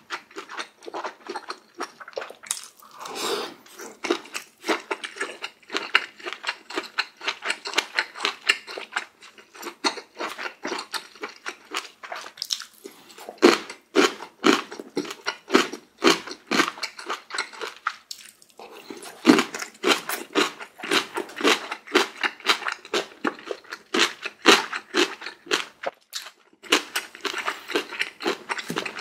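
A person chewing food close to the microphone, with crunchy bites at about two a second and a few short pauses.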